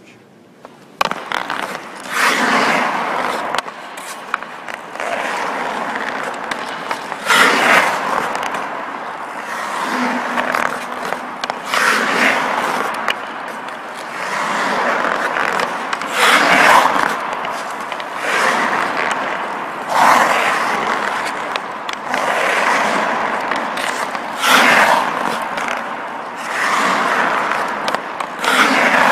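Ice hockey skate blades carving and scraping the ice through a series of tight turns, a swish of scraping that surges about every two to three seconds as each edge bites.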